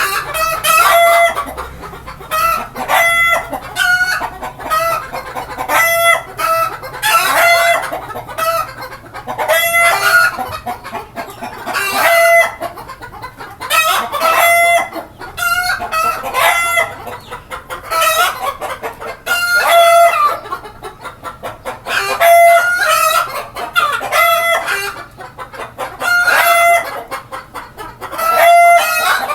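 A flock of desi chickens calling, loud pitched clucks and calls coming one after another every second or two.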